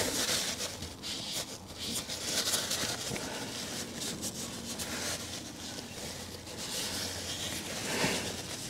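Cloth wiping excess silicone sealant from around a car door speaker's rim, a soft irregular rubbing and scrubbing over a faint steady low hum.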